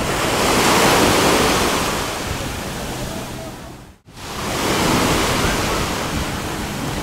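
Sea surf washing steadily, mixed with wind buffeting the camera microphone; the sound swells and ebbs and drops out for an instant about four seconds in.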